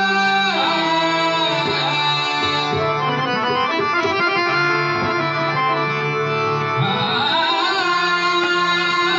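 Devotional abhang sung at a slow tempo: a harmonium plays steady held notes with pakhawaj and tabla drums, and a man's voice sings long gliding phrases at the start and again near the end.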